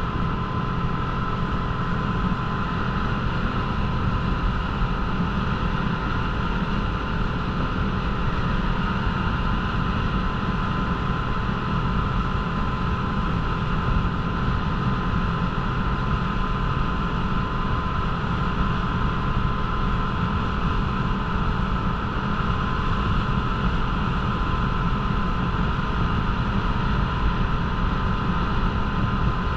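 Small motorboat under way on calm water: its engine drones at a steady cruising speed, mixed with rushing wind and water.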